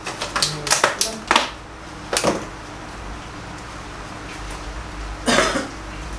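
Clear plastic bag crinkling in a few short bursts during the first second and a half, with another short rustle about two seconds in and a louder one about five seconds in, over a low steady hum.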